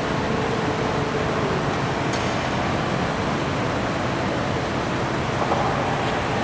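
Steady, even background noise like a loud hiss, with no distinct events.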